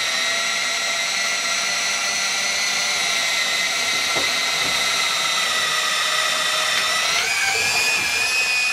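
Battery power drill driving a black corrosion-protected auger bit with a threaded tip into a thick softwood beam: a steady motor whine held down under the load of boring. About seven seconds in the whine rises in pitch.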